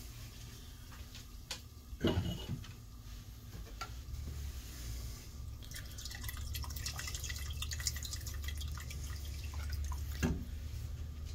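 Meat broth dripping and trickling through a plastic sieve into a pot. There are a couple of knocks, about two seconds in and again near the end.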